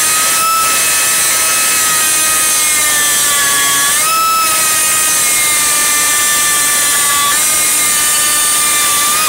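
Harbor Freight Central Pneumatic air die grinder running at full speed while a bit grinds out a hole in steel: a loud, steady high whine with a hiss above it, its pitch sagging slightly a few times under load. At the end the trigger is released and the whine falls away sharply as it spins down.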